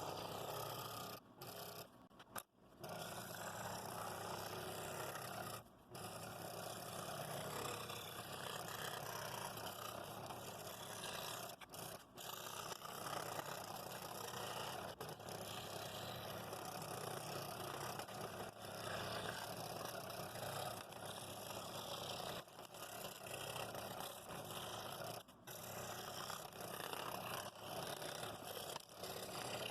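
Scroll saw running and cutting out wooden pattern pieces, a steady buzzing noise broken by several brief gaps.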